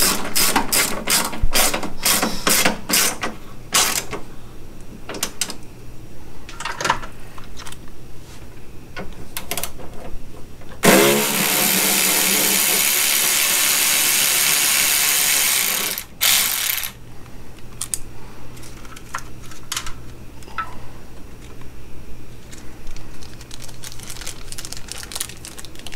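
Ratchet clicking in quick runs and scattered single clicks as fender bolts are driven. About eleven seconds in, a cordless battery ratchet runs steadily for about five seconds, its motor whine rising as it starts.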